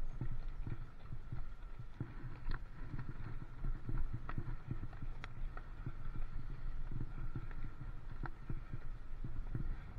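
A bicycle riding over a rough lane, heard through a camera mounted on the bike: a steady low rumble with frequent irregular rattles and knocks, and a faint steady high hum.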